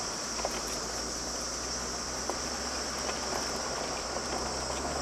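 Land Rover Discovery 2 Td5's five-cylinder turbodiesel running with a steady low rumble, heard from inside the cabin, the rumble growing a little about half a second in. A steady high chirr of insects runs over it.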